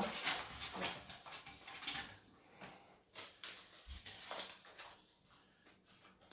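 Faint rustling and light clicks of items being handled on a desk, with a soft low thump about four seconds in.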